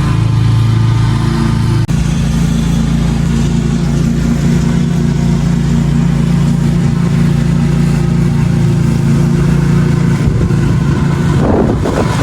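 Lawn mower engine running steadily under load, with a brief dropout about two seconds in and the engine note wavering near the end.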